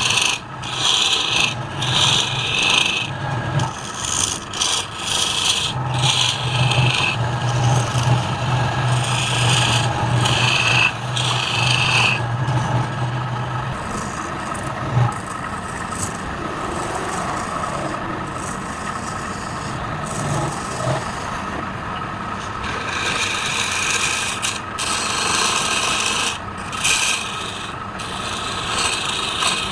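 Wood lathe running with a tool working the spinning wood: the tool's contact comes and goes in spells of a second or so over a steady hum, and is quieter through the middle stretch.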